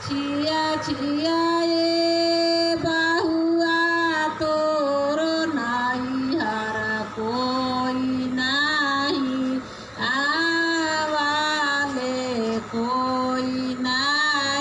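A woman singing a long, ornamented melody with gliding notes, over a steady low hum.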